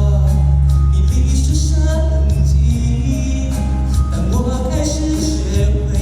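Mandopop ballad music: a singer over a backing track with a deep, steady bass line.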